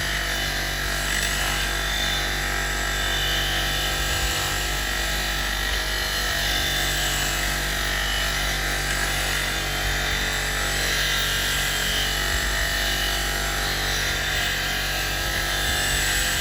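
Powered wire brush wheel running steadily, with an old box spanner held against it to scrub off rust and grime.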